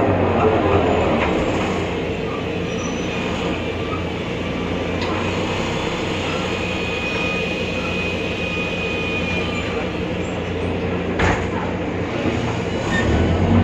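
Inside a BredaMenarini Avancity Plus city bus with a Deutz diesel and ZF automatic gearbox: the engine eases off and slows, runs steadily for several seconds, then picks up again near the end. A single sharp knock sounds about eleven seconds in.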